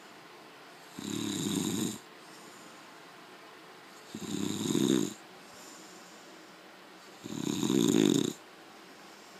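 A sleeper snoring: three snores, each about a second long and about three seconds apart, with quiet between them.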